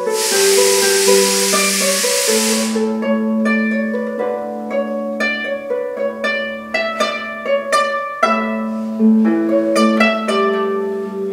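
Lever harp played by hand: a steady stream of plucked, ringing notes and chords. A loud hiss lies over the first three seconds.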